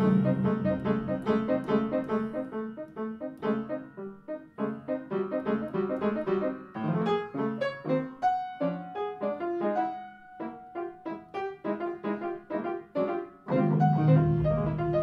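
Free-jazz acoustic piano playing quick, irregular runs of notes and chords, with a held low note coming in near the end.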